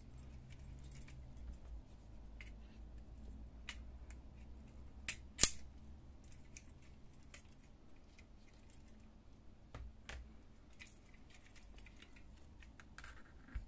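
Scattered small clicks and plastic handling noises as white wire connectors are unplugged from a laser-printer fuser unit and its plastic frame is turned over, with one sharp snap about five seconds in.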